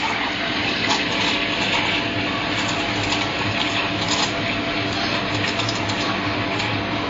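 Espresso machine steam wand hissing steadily into a stainless steel milk pitcher, steaming and frothing milk for a cappuccino, with a faint steady hum beneath.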